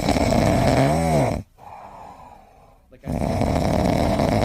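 Loud snoring: one long rasping snore ends about a second and a half in, and the next begins about three seconds in.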